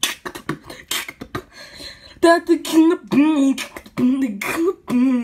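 A person making annoying mouth noises: a quick string of clicks and pops, then a wavering, sing-song nasal vocalizing from about two seconds in.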